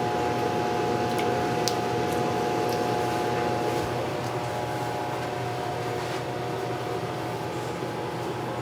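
Microwave oven running with a steady hum, a few faint ticks over it, as it heats jelly beans.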